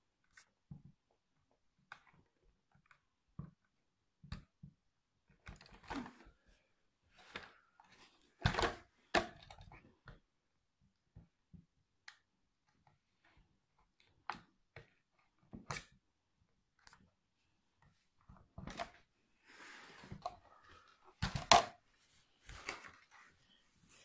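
Hands handling an RC buggy's plastic body shell and fittings: scattered small clicks, rustles and knocks, with two louder knocks, one about a third of the way in and one near the end.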